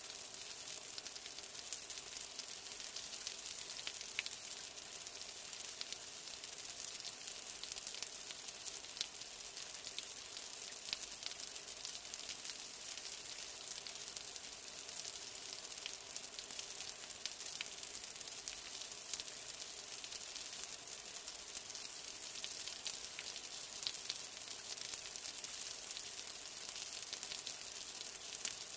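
Steady rain, a constant high hiss with scattered sharp drop ticks on hard surfaces.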